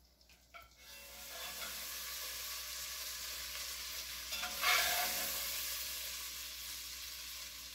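Pieces of floured beef sizzling in butter in a cast-iron Dutch oven. A few light clicks come first, then the sizzle comes up about a second in and surges loudly near the middle as more pieces go into the pot, then eases off.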